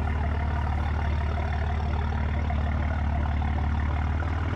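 Tuned 750 hp BMW M4's twin-turbo straight-six idling steadily, a low, even drone with no revving.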